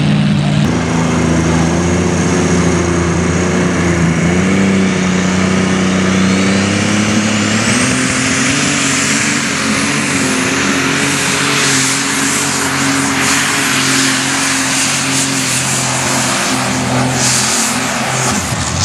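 Open super stock pulling tractor's turbocharged diesel engine running loud at the starting line, its pitch shifting as it is revved. A thin turbo whine climbs steeply about six to eight seconds in and then holds high.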